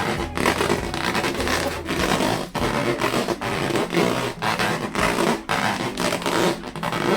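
Latex balloons being rubbed and squeezed by hand: a continuous run of rubbing, scraping squeaks.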